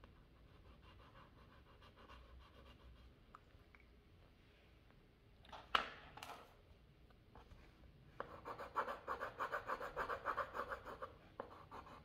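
Pencil scribbling back and forth on paper, shading in a drawing: faint scratching at first, two sharp knocks about six seconds in, then a quick, rhythmic scratching of about six strokes a second for the last few seconds.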